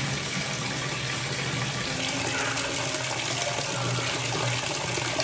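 Water from a wall tap pouring steadily into a plastic basin that is already part full, splashing and churning as it fills.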